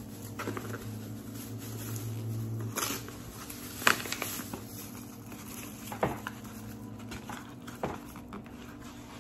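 Dry cornmeal mix pattering as it is poured and shaken from its bag into a plastic mixing bowl, with the bag rustling and a few sharp taps, the loudest about four seconds in.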